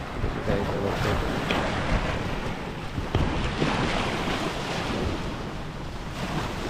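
Wind buffeting the microphone over the steady wash of sea waves on the shore.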